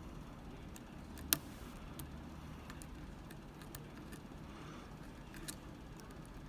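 Lock pick and tension wrench working in a Medeco lock cylinder: scattered small metallic clicks and ticks, one sharper click a little over a second in and another near the end, over a low steady background rumble.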